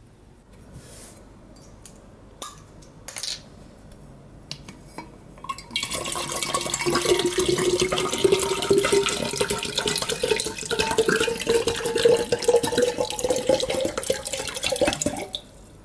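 Clear liquid, likely water, is poured steadily into a tall drinking glass for about ten seconds. The pitch rises slowly as the glass fills. A few light clicks come first.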